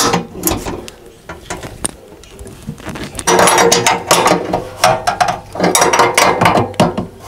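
Rapid ratchet clicking from a hand tool turning a fixing on a boiler casing, in runs, the longest starting about three seconds in.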